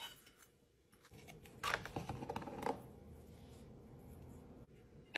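Quiet kitchen handling: a knife spreading frosting on cinnamon buns and clinking against a glass cake stand, with a short run of scrapes and clicks about two seconds in. A faint low hum follows.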